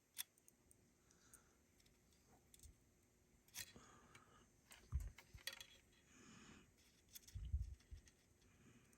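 Faint, scattered small clicks and metallic taps of a soldering iron and wire being handled at a terminal, with soft low bumps about five and seven and a half seconds in.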